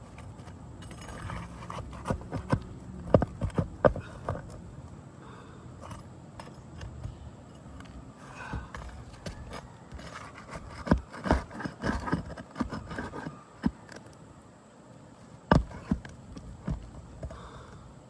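Sharp metal knocks and scraping of roofing tools working under asphalt shingles to pull out their nails, in bunches about two to four seconds in and again around eleven to thirteen seconds, with one loud strike near the end.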